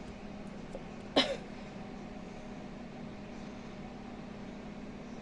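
A steady low hum, with one short, sharp sound about a second in.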